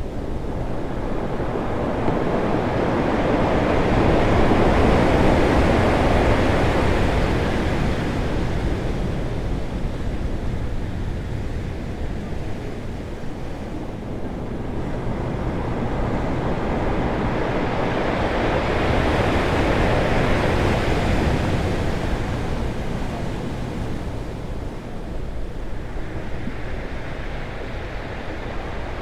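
Ocean waves breaking on rocks: a continuous loud surf roar that swells twice, about 5 and 20 seconds in, as big waves crash, easing between them.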